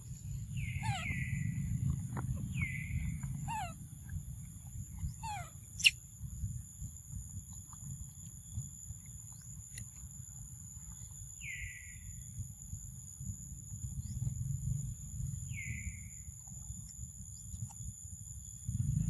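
A bird calling with short falling chirps, three in quick succession in the first few seconds and two more later, over a steady high-pitched whine and a low rumble. One sharp click about six seconds in is the loudest sound.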